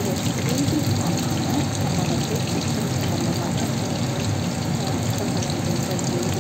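Batter-coated chicken pieces deep-frying in hot oil: a steady sizzle full of fine crackles.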